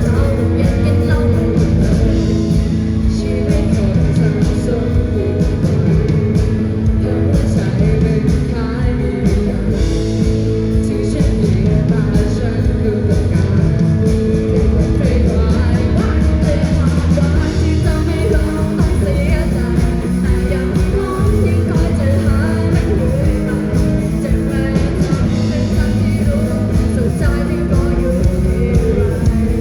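Live band playing a rock song with a singer over electric guitar, bass and drums, loud and continuous.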